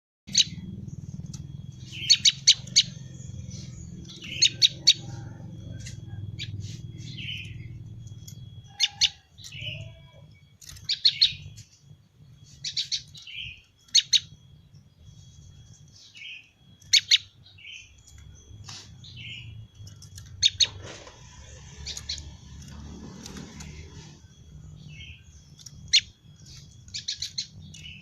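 Prenjak lumut songbird calling: sharp, high 'ceng-ceng' chirps in quick clusters of two to four notes, repeated every second or two, over a steady low hum.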